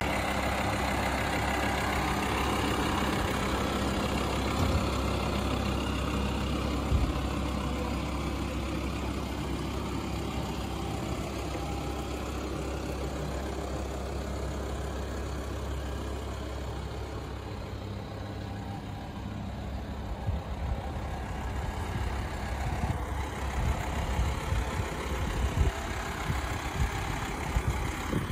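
Volkswagen T5 Caravelle's 2.5 TDI five-cylinder diesel engine idling steadily. In the second half the idle grows fainter and uneven low thumps of wind on the microphone come up.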